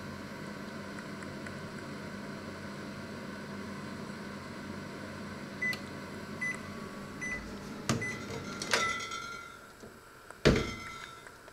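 Panasonic microwave oven running with a steady hum, then three short beeps about six seconds in as the cooking cycle ends. Clicks follow as the door is unlatched, the hum stops, and a loud knock comes near the end.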